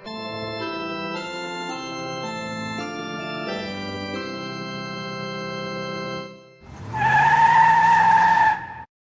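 Organ music playing held chords, fading out about six seconds in. Then a loud screech of skidding tyres lasts about two seconds and cuts off abruptly.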